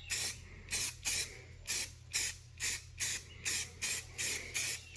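Air blow gun fed by a shop compressor, fired in quick short blasts of hissing air, about two and a half a second, blowing grinding dust off a freshly ground truck part. A faint steady low hum runs underneath.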